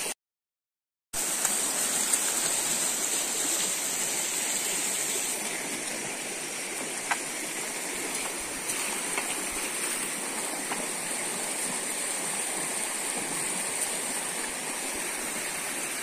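Fast, muddy, rain-swollen stream rushing steadily, a continuous hiss of flowing water. The sound drops out completely for about a second right at the start.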